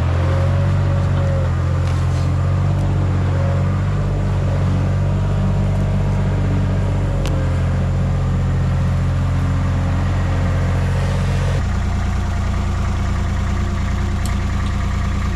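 Skid steer engine running steadily under work, a continuous low hum with a faint wavering whine over it in the first half; about three-quarters of the way in its note changes abruptly.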